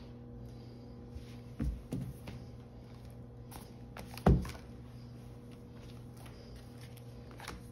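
Ring binders being handled and set down on a tabletop: a few soft thumps, the loudest about four seconds in, over a faint steady hum.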